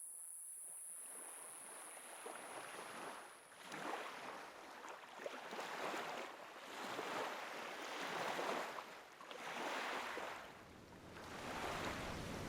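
Sea surf breaking and washing on a shore. It fades in over the first second or two, then swells and ebbs in waves about every couple of seconds.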